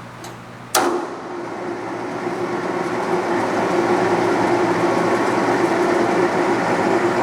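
Standard Modern Series 3000 metal lathe starting up: a sharp click about a second in, then the spindle and chuck spin up, growing louder over a few seconds and running steadily with a constant whine from the headstock gearing.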